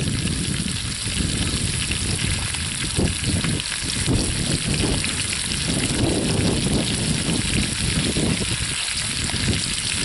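Chuck steak and sliced onions sizzling steadily in hot oil in a cast-iron Dutch oven, with an uneven low rumble underneath.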